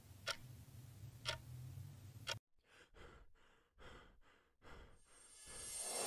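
A clock ticking about once a second over a low steady hum, cut off abruptly about two seconds in. Then a few short heavy breaths, and near the end a whoosh swells up louder.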